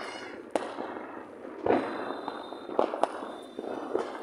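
Firecrackers going off: about five sharp bangs, the loudest a little under two seconds in, over a continuous crackle.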